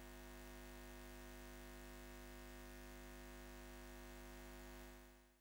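Faint, steady electrical hum with a deep low tone and several higher steady tones above it, fading out near the end.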